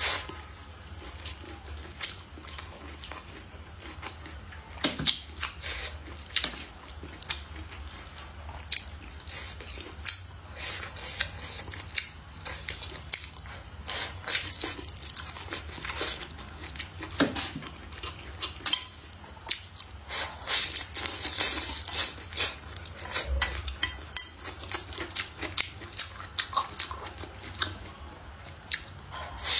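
Close-up eating: chewing, sucking food in and lip smacks, with wooden chopsticks clicking against a ceramic plate in many short, sharp sounds.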